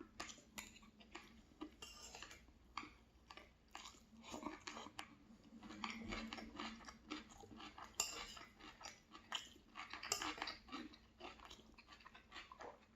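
Faint close-miked chewing and mouth sounds of a person eating, irregular small crackles and clicks, with a few sharper clinks of cutlery on the dish about eight and ten seconds in.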